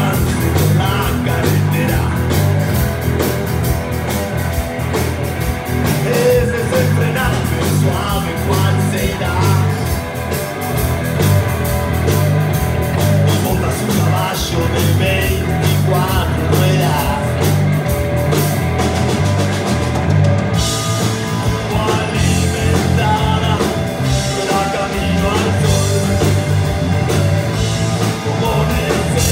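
Live rock band playing: electric guitars, bass and drum kit keeping a steady beat, with a man singing at times.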